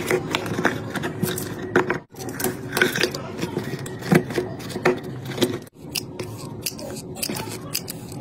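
Handling noise of electrical parts being fitted into a plastic battery case: irregular clicks, knocks and scrapes of plastic and metal, over a faint steady hum. The sound drops out briefly twice, about two and six seconds in.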